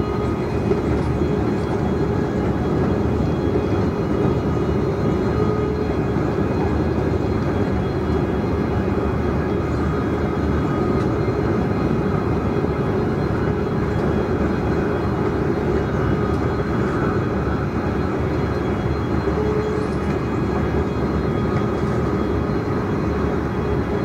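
Train running steadily at speed, a continuous rumble of wheels on rail heard from the driver's cab, with no changes or knocks.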